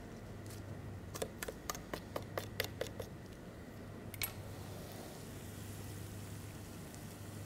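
A quick run of about ten light, sharp clicks, then one more a second later, as a knife trims thin filo (jullaj) pastry along the rim of a metal baking tin, over a low steady hum.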